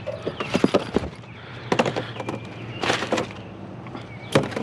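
Several separate knocks and clanks of scrap items being handled and set down.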